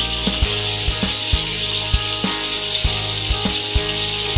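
Pork belly slices sizzling steadily in hot oil in a wok, mixed with background music that has a steady beat of about two knocks a second.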